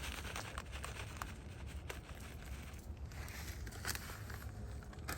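Hands working soil and fertilizer in a garden planting hole: faint scattered rustles and small clicks over a low steady rumble, with the sharpest clicks about two, four and five seconds in.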